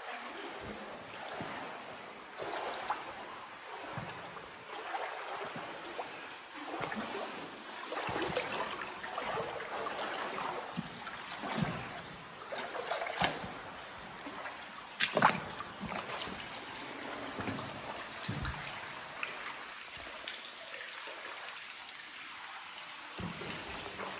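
Water trickling and splashing as someone wades through shallow water, with scattered knocks and scrapes throughout; a cluster of sharp knocks about fifteen seconds in is the loudest.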